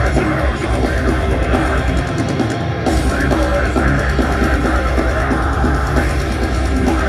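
Deathcore band playing live: heavily distorted guitars, bass and fast drumming, loud and dense throughout, with the low end dropping out for a moment about two and a half seconds in.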